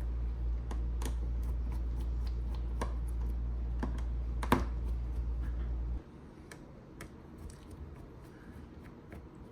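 Small scattered clicks and taps of a precision screwdriver and tools working the screws on a smartphone's inner frame, with one sharper click about halfway through. A steady low hum under them cuts off suddenly about six seconds in.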